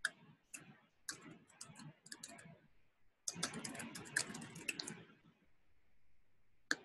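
Computer keyboard typing: three quick bursts of keystrokes with short pauses between them, and a single click near the end.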